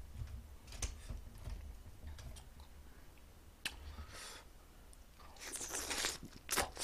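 Light clicks of chopsticks picking up a piece of oven-baked soy-garlic chicken, then, about five seconds in, a person biting into it and chewing.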